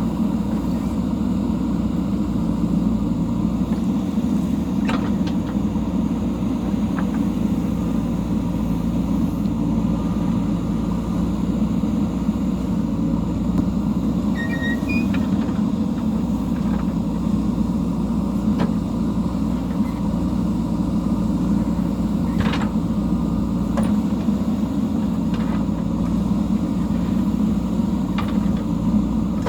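Diesel engine of a JCB backhoe loader running steadily, with a few faint clicks scattered through.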